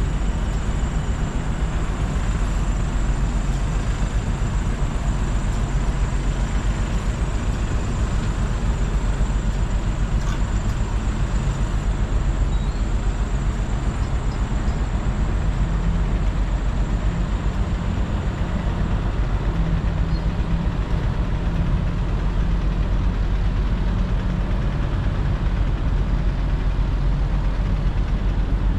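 Steady low rumble of road traffic and motor vehicles, with a faint steady high-pitched whine above it.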